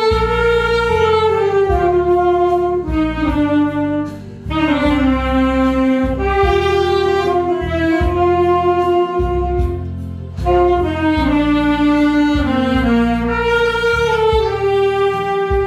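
Saxophone playing a slow, sustained melody of long held notes in falling phrases, over a backing track with a steady bass line; the phrases break off briefly about four and ten seconds in.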